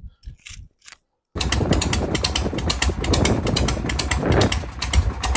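A few faint clicks, then, from about a second and a half in, a 1981 Harley-Davidson FXWG Wide Glide's Shovelhead V-twin running with a rapid, even mechanical clatter over a deep exhaust rumble.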